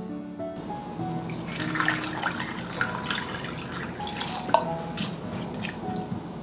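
Water poured from a glass jug into a glass bowl of cut daikon radish, splashing and trickling over the pieces, with one sharp knock about four and a half seconds in. Light background music plays throughout.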